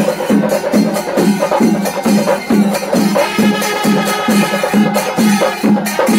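Percussion music with a steady, even drum beat of about three strokes a second; a held melodic line joins about halfway through.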